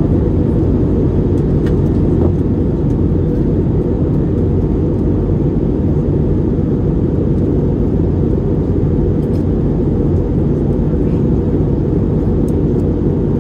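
Steady low rumble of an Airbus A321neo's Pratt & Whitney PW1100G geared turbofans and rushing airflow, heard from inside the passenger cabin in flight.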